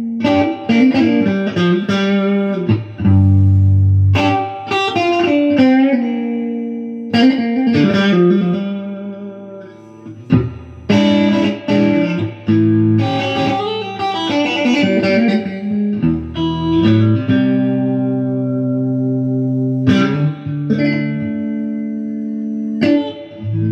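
Telecaster-style electric guitar played through an amplifier: picked chords and single notes left to ring out, with a quieter stretch about ten seconds in.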